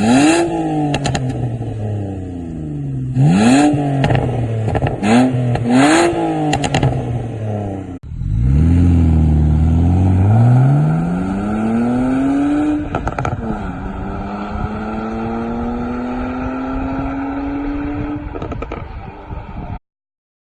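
Tuned BMW 325i E91's 3.0-litre straight-six revved in four quick blips, with crackles and pops from the exhaust as the revs fall off. Then the car pulls away under hard acceleration: the revs climb, drop at an upshift, and climb again more slowly before the sound cuts off.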